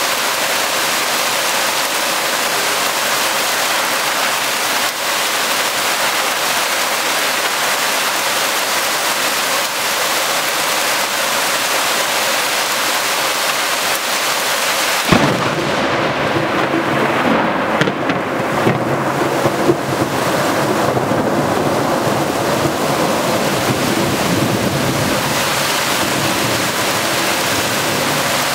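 Heavy rain pounding on pavement and a storm-drain grate, a steady hiss. About halfway through a thunderclap breaks in, followed by several seconds of deep rumbling with a few sharper cracks.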